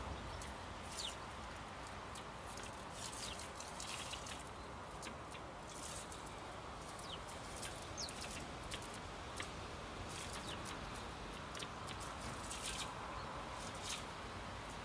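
House sparrows giving short, scattered chirps, some with a quick slide in pitch, over a steady background hiss.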